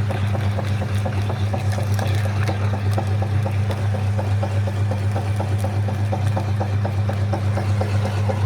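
Electric meat grinder running, its motor giving a steady low hum with fast, regular ticking from the mechanism as it grinds.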